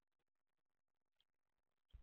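Near silence with a faint tick a little over a second in and a brief low thump near the end.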